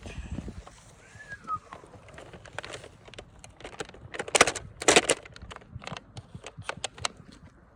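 Irregular crunching and crackling, like footsteps or movement through dry leaves and brush, loudest in two bursts about four and five seconds in. A short chirp, like a bird's, sounds about a second in.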